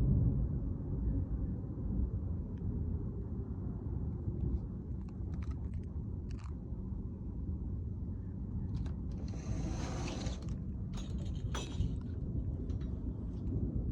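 Low, steady rumble of a thunderstorm, loudest right at the start, with scattered sharp clicks and a short hiss about ten seconds in.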